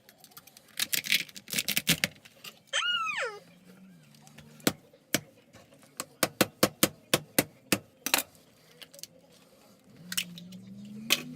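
Sharp clicks and clatter of kitchen utensils, with a fast run of about five knocks a second in the middle. A brief rising-and-falling vocal sound comes about three seconds in, and a low hum starts near the end.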